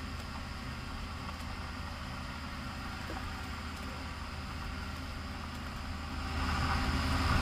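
Heavy vehicle engines, a big tractor and a garbage truck, running with a steady low drone as the tractor drags the truck along the ditch by a chain, growing louder about six seconds in.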